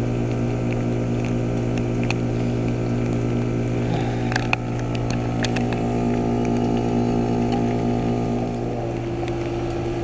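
Outdoor unit of a Ruud Achiever RP14 heat pump running through its defrost cycle: a steady, loud hum with a few faint ticks about halfway through.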